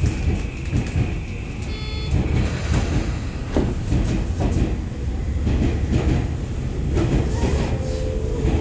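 Electric commuter train running, heard from on board: a steady low rumble with irregular clicks of the wheels over rail joints, and a brief high ringing tone about two seconds in.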